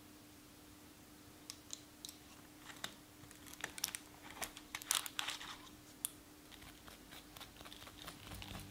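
Faint, scattered clicks and crackles, densest about five seconds in, from handling a freshly baked apple cake. A thin wooden skewer is pushed into and drawn out of the crust, and the metal cake pan is gripped and shifted on a wooden board. Music comes in at the very end.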